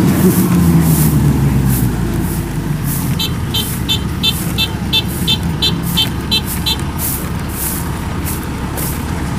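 Kubota DC-105X combine harvester's diesel engine running steadily, its pitch dropping over the first two seconds. Partway through, a high electronic beeper on the machine sounds about three times a second for several seconds.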